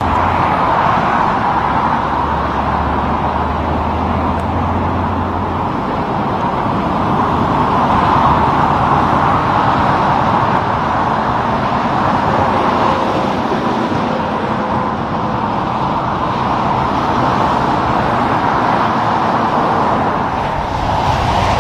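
Steady highway traffic: tyre and engine noise of passing cars and trucks, among them a Peterbilt semi pulling double trailers, swelling and easing as vehicles go by, with a low hum in the first few seconds.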